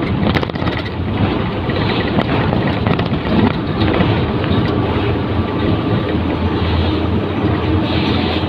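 Truck engine and road noise inside the cab while driving at steady speed: a constant low drone with wind and tyre rush. A few faint clicks come under a second in.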